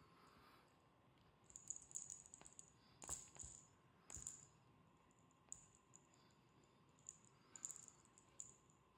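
Faint rustling and scratchy clicking as a feather wand cat teaser is swished over tatami mats and against a wooden box, in irregular clusters with two light knocks about three and four seconds in.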